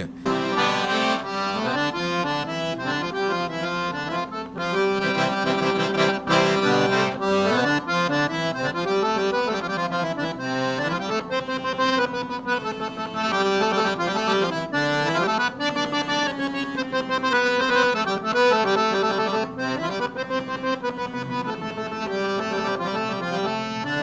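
Accordion (sanfona) playing an instrumental tune: a moving melody over steadily held low bass notes.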